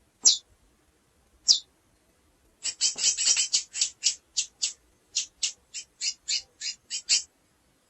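Female chestnut-bellied seed finch (curió) calling: two single high, downslurred call notes, then a quick run of chipping notes lasting about four and a half seconds.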